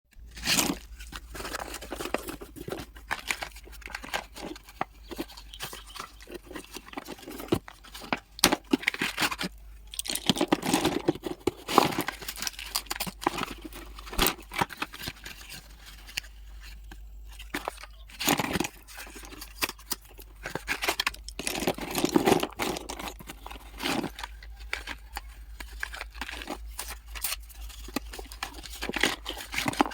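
Close-up handling of a box of slate pencils being unboxed: packaging tearing and crinkling, with irregular sharp clicks and rustles.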